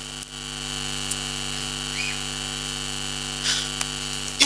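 Steady electrical mains hum and a high steady whine, as from a PA sound system with live microphones, with a few faint brief noises.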